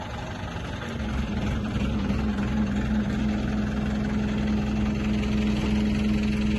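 Hydra mobile crane's diesel engine working steadily, rising in speed and level about a second in and then holding while the crane winches its cable up out of the gorge.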